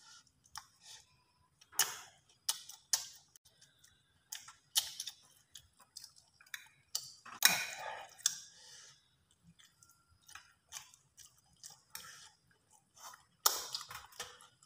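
Eating sounds: a metal spoon clinking and scraping against a ceramic rice bowl and plate, with mouth clicks from chewing, in sharp irregular ticks and a few louder clatters.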